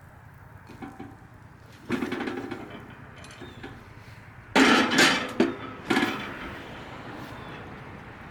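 Cast iron pie iron clanking and scraping as it is handled, with a cluster of loud metal clanks a little past halfway.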